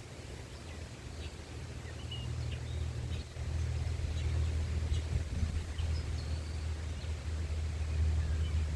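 Birds chirping now and then over a low, steady rumble that steps up in loudness about three seconds in.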